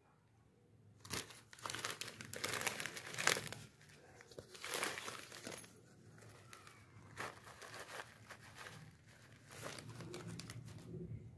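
Foil-lined plastic snack packet crinkling as it is handled and tipped to pour snack sticks onto a plastic plate. It starts about a second in, is busiest over the next few seconds, then comes in shorter rustles.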